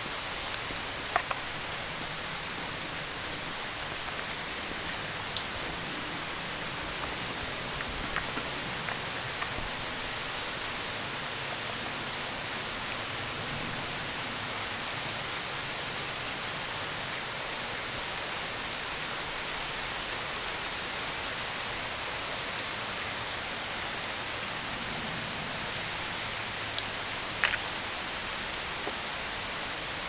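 Steady rain hiss, with a few sharp drop taps standing out, one about a second in, one about five seconds in and the loudest near the end.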